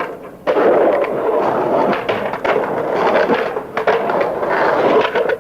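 Skateboard wheels rolling steadily over pavement. The sound cuts out briefly near the start, then runs on.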